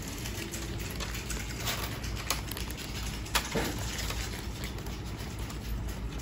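Steady low hum of store background noise, with a few short sharp clicks and taps near the middle.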